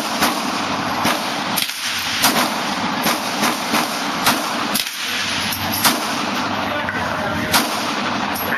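Several separate gunshots, a second or two apart at irregular intervals, over a steady hiss of range noise.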